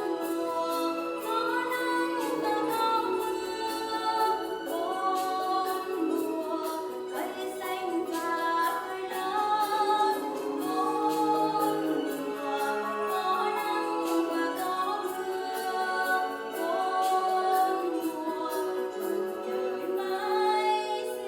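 A children's song playing: singing voices over instrumental accompaniment, with a light percussive beat.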